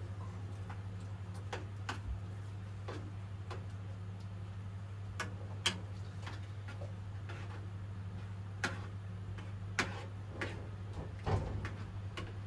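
Irregular light clicks and taps of a utensil against a saucepan as it is stirred on the stove, over a steady low hum. A heavier knock comes near the end.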